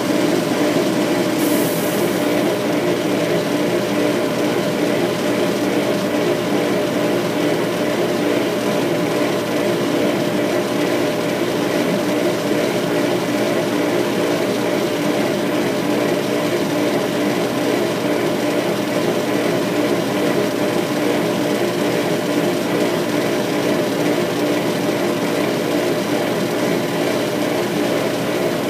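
Laser engraver running as it etches: a steady machine hum with several held tones, and a short high hiss about two seconds in.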